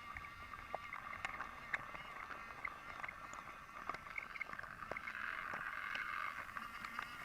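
Small electric motor of a battery-powered Brio wooden toy train whining steadily as it runs, with scattered light clicks of its wheels over the wooden track.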